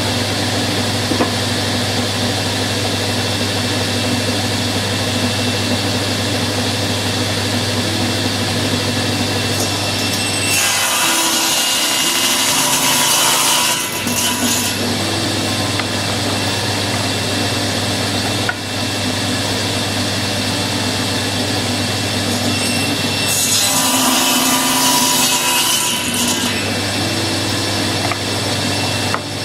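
Table saw running with a steady hum, cutting wood on a crosscut sled twice, about 10 and 23 seconds in. Each cut lasts about three seconds and rises to a harsh, higher-pitched sawing as the blade goes through the carved wood panel.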